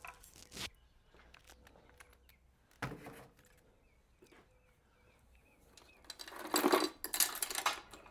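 Small metal parts clicking and clinking as a nut and washer are handled on a motorcycle's rear brake drum assembly, with a louder clatter lasting about a second and a half starting about six seconds in. Faint bird chirps behind.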